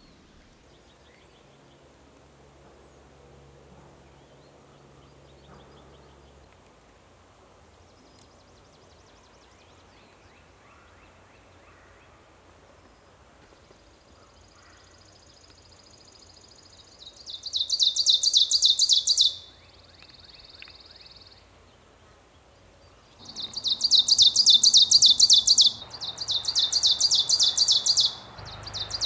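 Ovenbird singing its loud teacher-teacher song. Four runs of rapidly repeated high two-note phrases, each two to three seconds long and swelling in loudness, begin a little past halfway through, after a quiet stretch with only faint scattered bird calls.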